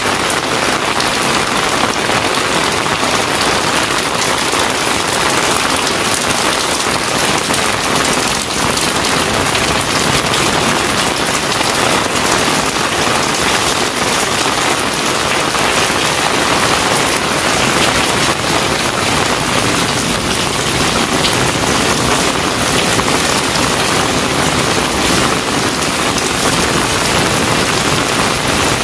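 Heavy rain pouring steadily, a dense, even hiss of drops splashing onto a wet concrete path.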